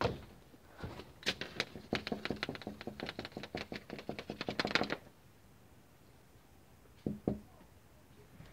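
A quick run of light knocks, several a second for about four seconds, then two softer thumps near the end.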